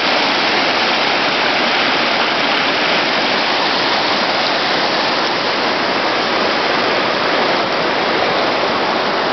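River water rushing over a low rock ledge in small rapids: a steady, loud rush that does not change.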